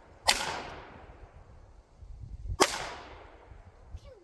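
Two handgun shots about two seconds apart, each followed by a fading echo.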